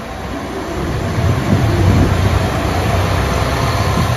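JR Kyushu 'BIG EYE' inspection diesel railcar (a KiHa 220 type) running past at close range, its diesel engine and wheels on the rails growing louder about a second in.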